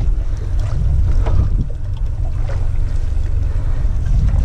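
Low, steady rumble of wind buffeting the microphone, with water lapping against a small boat's hull.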